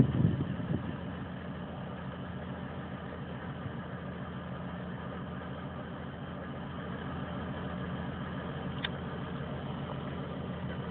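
Steady low machine hum of a running motor, like an engine idling, with an even fine pulsing. A short high squeak comes about nine seconds in.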